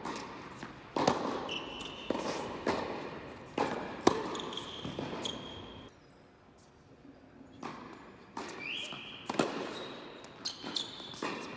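Tennis rally on an indoor hard court: sharp racket-on-ball strikes and ball bounces echoing in the hall, with short high squeaks of sneakers on the court surface. A lull of about a second and a half comes midway.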